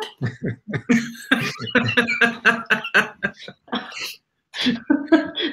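A woman laughing in quick, short bursts over a video call, mixed with some unclear talk; the voice breaks off briefly a little past four seconds in.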